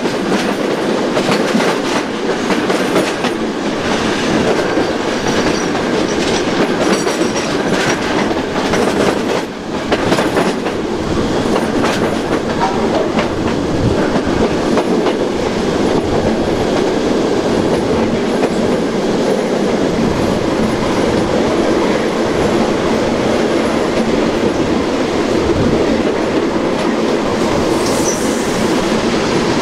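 Modernised SNCB AM80 electric multiple unit running along the line: a steady rumble with scattered clicks of the wheels over the rails, and a brief lull about ten seconds in.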